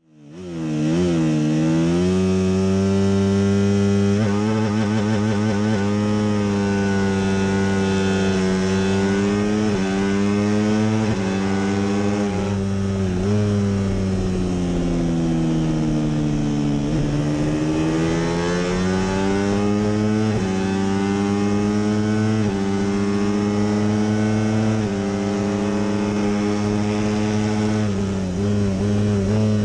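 250cc single-cylinder four-stroke racing motorcycle engine heard close from an onboard camera, running hard at high revs. Its pitch climbs and drops sharply at each upshift, sags under braking into a long corner, then climbs again under acceleration.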